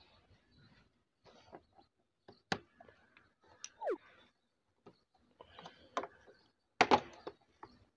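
Scattered clicks and knocks of a screwdriver turning the screws of a motorcycle's plastic side panel, with a short squeak about four seconds in and the loudest pair of knocks near the end.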